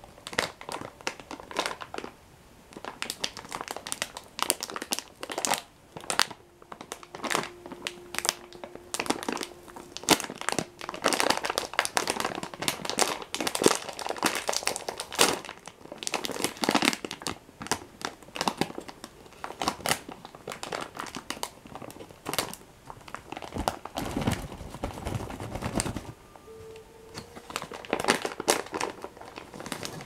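Plastic biscuit packet crinkling and rustling as it is handled and pulled open, in irregular bursts throughout, heaviest a few seconds before the end.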